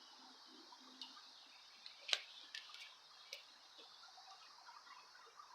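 Scattered light clicks and ticks from handling a bicycle wheel during truing, about half a dozen at uneven spacing, the sharpest about two seconds in.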